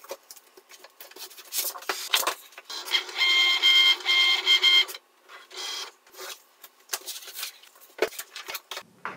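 Cricut Maker cutting machine drawing a loaded cutting mat in, a motor whine in short repeated pulses for about two seconds starting about three seconds in, with a brief second whine soon after. Clicks and rustling from handling the mat and the heat-transfer vinyl sheets run around it.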